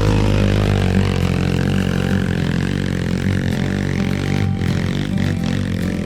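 Trail motorcycle engine revving through mud, its pitch rising and falling with the throttle.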